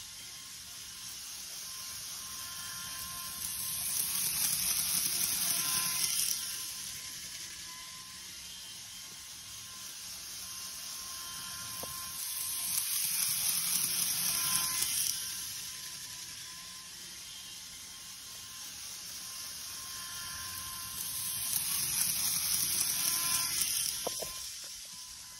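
An N-scale model of a JR West 225 series 100 subseries eight-car train running around a track loop: a steady motor whine and rattling hiss of wheels on the rails. The sound swells three times, about every nine seconds, as the train passes close by.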